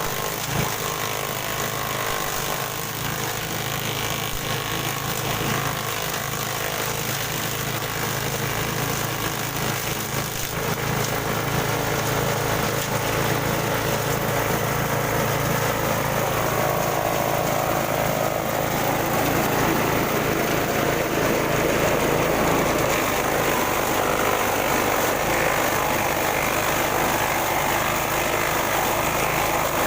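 Small engine of a grass chopper machine running steadily, growing somewhat louder and fuller about a third of the way in.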